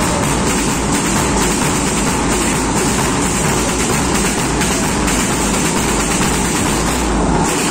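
A marching drum band's bass drums and side drums beating together, a loud, dense, unbroken din.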